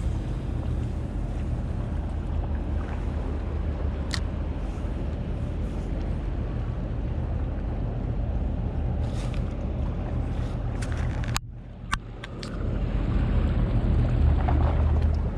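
A boat's motor running steadily with a low hum, under wind and water noise. About eleven seconds in the sound drops out for a moment with a couple of sharp clicks, then comes back a little louder.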